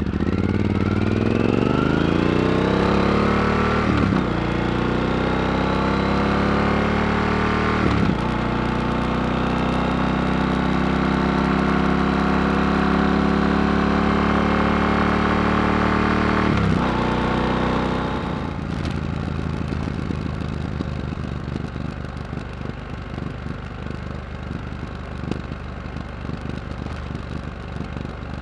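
Yamaha XT1200Z Super Ténéré's parallel-twin engine through an unbaffled Yoshimura RS-4 exhaust, pulling hard up through the gears with shifts about 4, 8 and 17 seconds in. About 18 seconds in the throttle closes and the exhaust drops to a lower, rougher crackling note on the overrun.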